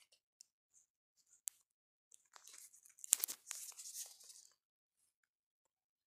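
Handling noise from a phone recording: a few faint ticks, then about two seconds of rustling and scraping with several sharp clicks in the middle, as the phone is moved and set down.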